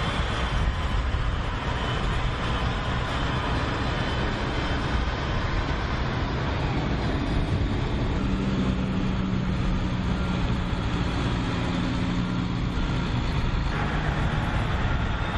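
Oshkosh HEMTT heavy military trucks' diesel engines running, a steady low drone with road noise. A deeper engine tone grows stronger about halfway through and fades a couple of seconds before the end.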